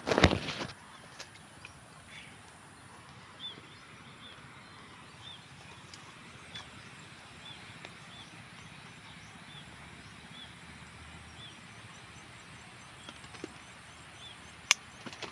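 A brief rustle and bump of leaves against the phone at the start. Then a short high chirp repeats about once a second over quiet outdoor background. Near the end there is a single sharp snip of pruning shears cutting a string bean from the vine.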